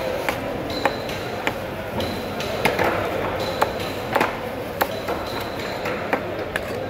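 Knife blade chopping through tuna loin and knocking on a wooden chopping board, in irregular sharp strikes, over steady background noise with a few brief high pings.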